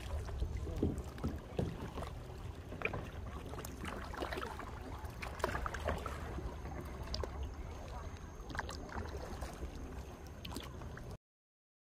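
Kayak paddle strokes, with small splashes and drips of water as the kayak glides through still water, over a steady low rumble. The sound cuts off abruptly near the end.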